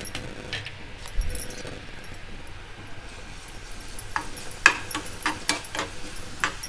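Metal spoon clinking and scraping against a frying pan while stirring chopped garlic in hot oil: a few single clinks early, then a quicker run of clinks in the second half.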